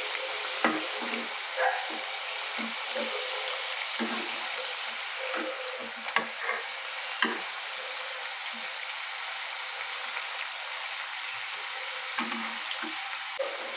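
Batter-coated potato sticks deep-frying in hot oil, a steady sizzle, with a slotted spoon knocking against the pan about five times as the pieces are stirred apart.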